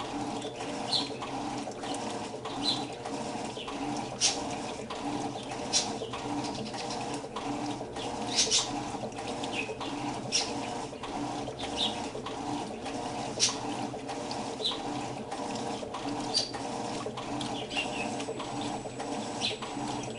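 Electrolux washing machine running: a steady hum with a regular churning pulse and water sloshing, with short high chirps or squeaks scattered through it.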